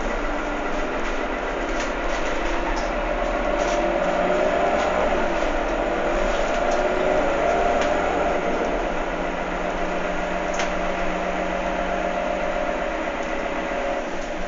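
Heuliez GX327 city bus heard from inside the passenger cabin while riding: its engine and drivetrain give a steady drone with a whine that wavers in pitch, with scattered clicks and rattles from the interior.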